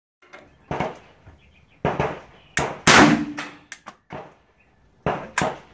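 Suppressed shots from a Zastava M92 short-barrelled AK-pattern rifle in 7.62×39, about six sharp reports at irregular intervals with a few fainter cracks between them; the loudest comes about three seconds in and leaves a brief ringing tail.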